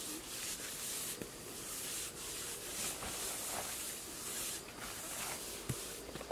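Bare hands rubbing and smoothing wet cement render on the curved wall of a small dug-in pool, giving a scraping hiss in repeated strokes. There is one soft knock near the end.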